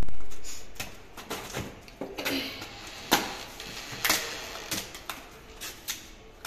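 A cardboard shipping box being cut and torn open by hand: a blade scraping through the packing tape, then cardboard flaps ripping and crackling, with irregular sharp clicks and taps.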